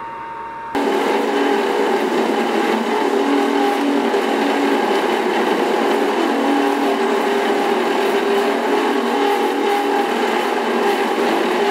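Belt grinder running with a metal pommel pressed against its abrasive belt, a loud steady grinding. It starts suddenly just under a second in.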